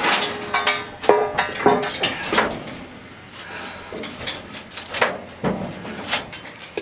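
A heavy steel girder being shoved and worked into a rough opening in a stone wall: irregular knocks and scrapes of steel on stone, some with a short metallic ring.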